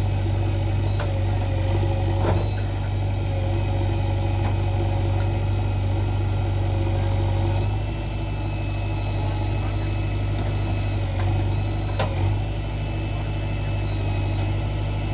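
Heavy diesel machinery engine idling steadily. Its note shifts slightly about eight seconds in, and there are two short knocks several seconds apart.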